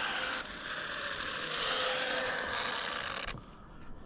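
Stretched Arrma Typhon electric RC car driving in on 6S: drivetrain and tyre noise with a faint motor whine falling in pitch, cutting off suddenly about three seconds in as the car stops.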